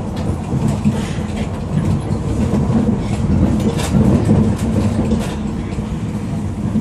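Suburban electric train running along the track: a steady low rumble with scattered light clicks from the wheels.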